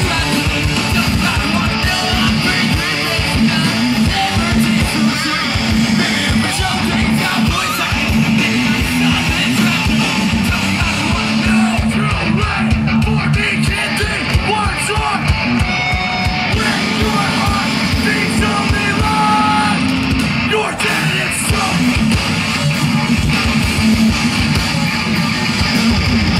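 A pop-punk band playing live and loud: distorted electric guitars and drums with a vocalist singing.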